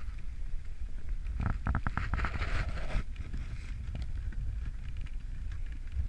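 Dog sled running over a packed snow trail: a steady low rumble of the runners and wind on the microphone, with a short run of clicks and a brief hiss about two seconds in.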